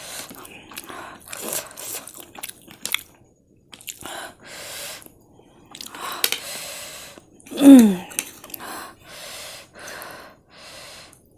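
A person chewing mouthfuls of very spicy Korean noodles, with repeated short breathy puffs and gasps against the chilli heat, and one brief falling vocal groan about eight seconds in.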